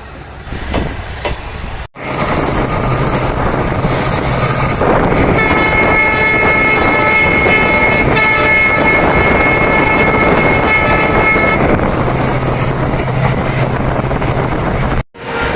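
Indian Railways WDG4 diesel locomotive passing close, with a heavy rumble of wheels on rail. Its horn sounds a steady chord of several notes from about five seconds in, held for roughly seven seconds.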